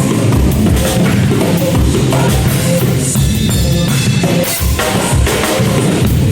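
Drum kit played hard along with a rock backing track, the bass drum and snare to the fore.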